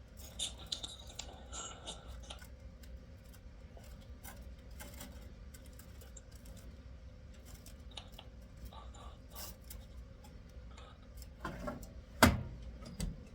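Scattered small clicks and handling noises, with one sharp, much louder click about twelve seconds in.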